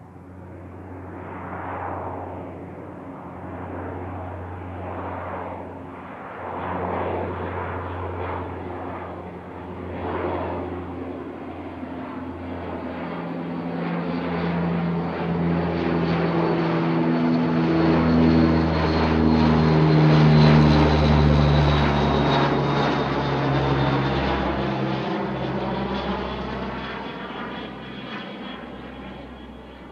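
C-2 Greyhound's twin Allison T56 turboprop engines and propellers passing low overhead. The propeller drone and a high turbine whine grow louder to a peak about two-thirds of the way through, then fade, and the whine drops slowly in pitch as the aircraft goes by.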